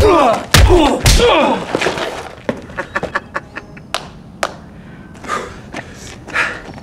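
Blows landing in a fist-and-kick fight: three loud, sharp thuds in the first second or so, with grunts and yells. Lighter knocks and clicks follow.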